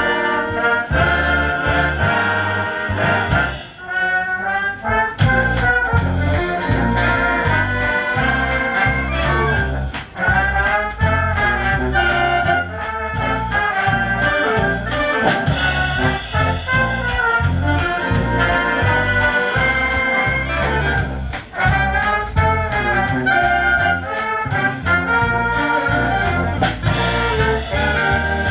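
Wind band playing a lively piece, the brass carrying the tune over a steady bass beat. The band thins out briefly about four seconds in, then comes back in at full strength with sharp rhythmic hits.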